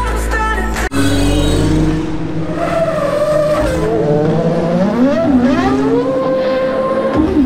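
Formula 1 cars' turbocharged V6 engines running on the circuit, several at once, their pitch climbing and falling as they accelerate and change gear. Trackside PA music with a voice plays for about the first second, then cuts off abruptly.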